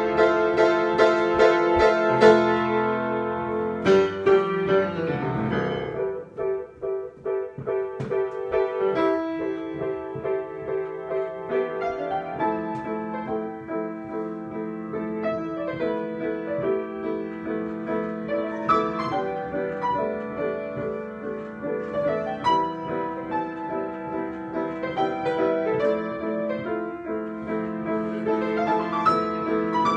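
Solo piano improvisation: a run of quick repeated notes at the start, a brief quieter, sparser passage about six seconds in, then steady chordal playing.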